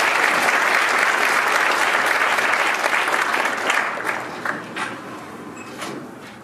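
Audience applauding, loud at first, then thinning out over the last two seconds to a few scattered claps.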